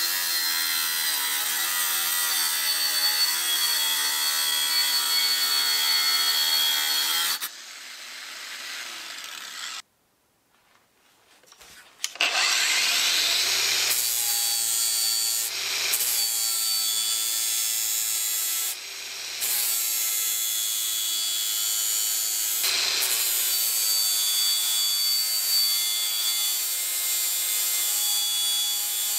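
Metabo WB 18 LTX brushless cordless angle grinder cutting into a steel bar with a cut-off disc, then dropping off. After a couple of seconds of near silence the motor spins up with a rising whine and grinds the steel edge with a grinding disc, easing off the work briefly three times.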